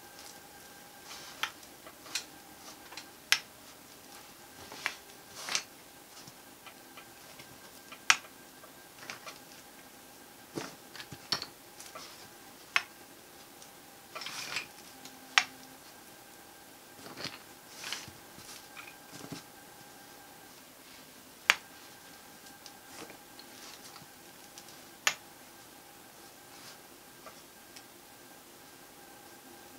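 Small magnetic map blocks clicking as they are picked up, snapped together and set down on a table: sharp clicks at irregular intervals, a dozen or more, with quieter handling sounds between them. A faint steady hum runs underneath.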